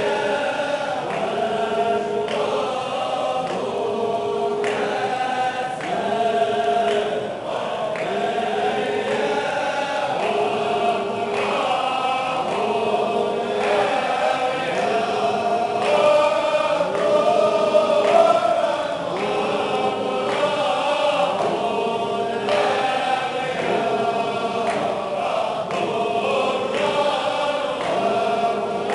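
A large congregation of men chanting a Sufi zikr in unison. Rhythmic calls of God's name repeat about once a second, under a sung melody of devotional poems, in a reverberant mosque hall.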